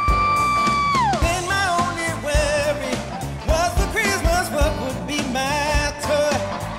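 A singer performing a pop song live over a band backing with a steady drum beat. The song opens on one long high held note that slides down about a second in, followed by quicker sung phrases with vibrato.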